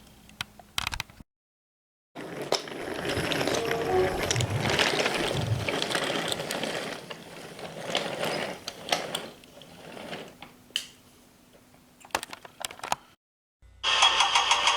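Toy crane and model railway pieces being worked by hand: a dense run of mechanical clicking and clattering for about five seconds, then quieter scattered clicks and knocks. A different, denser sound starts about a second before the end.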